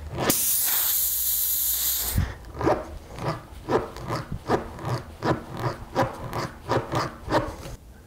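Tire puncture rasp tool worked in the hole in a car tire's tread: a burst of air hissing out of the puncture for about two seconds, then a steady rhythm of short scraping strokes, about two or three a second, as the rasp is pushed up and down to roughen the hole for a plug.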